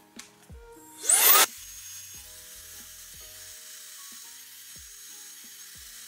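MOOSOO MH10 high-speed hair dryer switched on: its digital motor gives a sharp rising whine about a second in, then settles into a steady airflow hiss on the highest speed setting. Background music plays under it.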